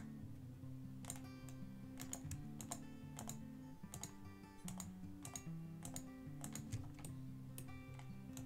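Irregular clicks of computer keys being pressed, over quiet background music with low notes that shift every half second or so.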